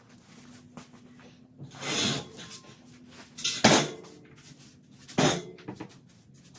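Metal clanks and knocks of things being handled: three louder clanks, about two, three and a half and five seconds in, each with a brief ring, among quieter rattles.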